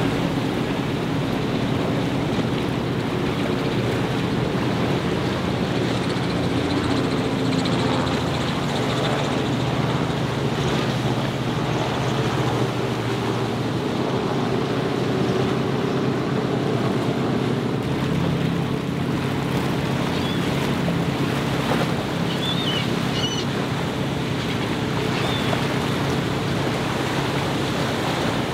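Powerboat engines running steadily as boats speed through choppy inlet water, with waves splashing and wind buffeting the microphone.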